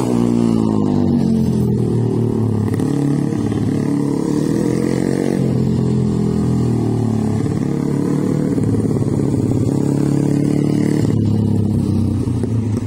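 Small engine of a child's mini GP motorcycle running, its pitch rising and falling as the throttle is opened and closed. The pitch drops just after the start as the bike passes close by.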